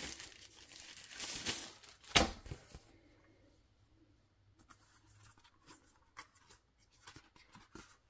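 Packaging and paper being handled: crinkling and rustling for the first few seconds, with one sharp loud crackle about two seconds in. Then fainter paper rustles and small ticks as a folded paper guide is opened.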